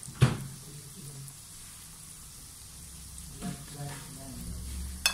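Mashed sweet potato patties sizzling in oil in a nonstick frying pan. A metal spatula clacks sharply against the pan about a quarter second in and again near the end.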